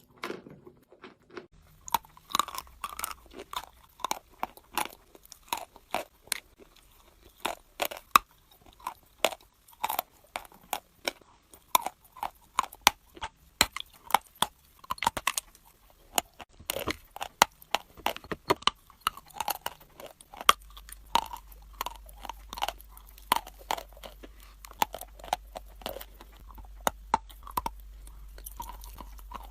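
Close-up crunching as someone bites and chews something hard and brittle, in a fast run of sharp cracks. A low steady hum joins about two-thirds of the way through.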